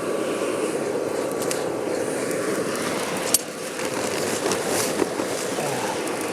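Steady rushing of a charcoal hearth-furnace fire under an air blast through the tuyere, with a few sharp clicks as pieces of bloomery iron are laid on the burning charcoal, the loudest a little past the middle.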